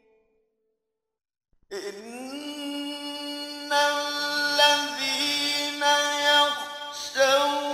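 A pause of about a second and a half, then a male reciter chanting the Quran in a slow, melodic tajwid style. The voice glides up into its first note and holds long steady notes with only brief breaks.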